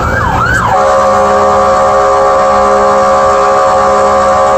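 Fire truck's siren heard from inside the cab, sweeping in quick rising wails, then switching less than a second in to a loud, steady, held blaring tone of several notes at once.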